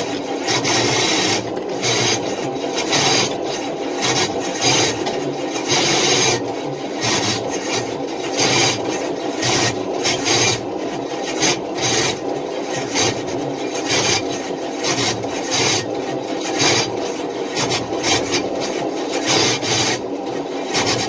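Starter motor cranking an engine over on its flex-plate ring gear without it firing: a continuous rasping, grinding noise that pulses unevenly.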